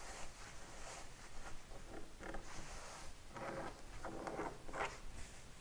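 Hands smoothing and sliding over cotton patchwork fabric on a cutting mat: soft fabric rustling in several short swishes, mostly in the second half.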